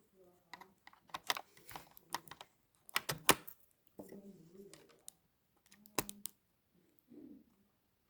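Irregular clicks and taps on a computer keyboard or similar hard plastic parts, coming in short clusters with pauses between, the loudest near the middle.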